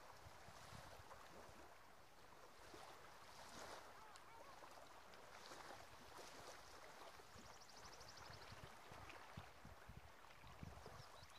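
Near silence: the faint wash of small waves on a sandy, stony shore, swelling softly every second or two, with light wind on the microphone. A brief, faint, fast high ticking comes about eight seconds in.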